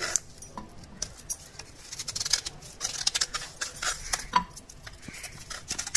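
Kitchen knife scraping and prying coconut flesh out of a coconut shell half, with many short irregular clicks and scrapes of the blade against the shell and flesh. The shell was heated briefly on the stove so the flesh comes away from it.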